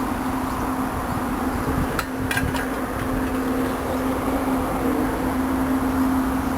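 Steady hum and noise, with a few sharp clicks about two seconds in, like metal parts or a tool knocking together while a microwave oven is taken apart.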